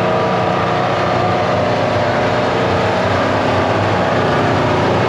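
An engine running steadily with a constant hiss over it, with no change in speed.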